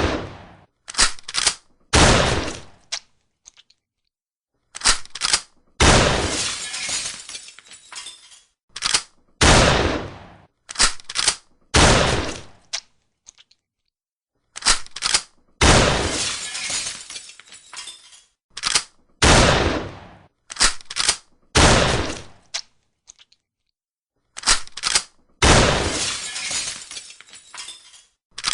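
Shotgun firing shots that ring out and die away over about two seconds, between quick pairs of short sharp clacks of the action being worked and shells loaded, in a sequence that repeats about every ten seconds.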